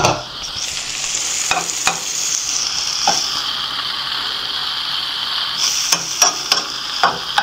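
Flaked saltfish and onions sizzling in hot oil in a frying pan, steadily, while a spatula stirs them, scraping and knocking against the pan now and then, most often near the end.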